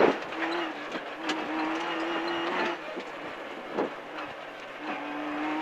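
Peugeot 206 RC rally car's 2.0-litre four-cylinder engine heard from inside the cabin at speed, holding a steady note, easing off a little before three seconds in and pulling again from about five seconds in. Tyre and road noise from the loose track runs underneath, with a few short knocks.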